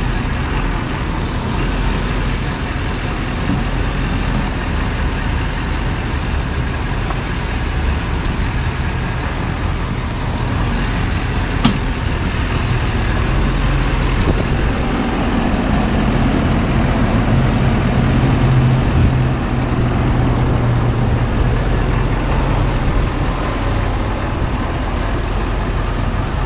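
Ford F-450 Super Duty pickup's diesel engine running steadily at low speed as the truck reverses a heavy fifth-wheel trailer. The engine grows louder for a few seconds past the middle as it takes more throttle. There is one sharp click a little before that.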